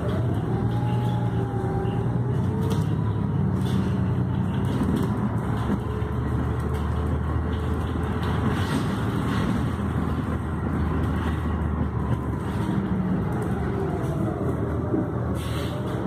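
City bus running along the road, heard from inside the passenger cabin: a steady engine and drivetrain drone with road noise. A thin whine rises and falls in pitch near the start and again near the end as the bus changes speed.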